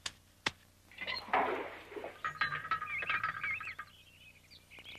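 Cartoon sound effects: two quick taps and a short whoosh as a character dashes off, then birds twittering in quick warbling chirps for about a second and a half.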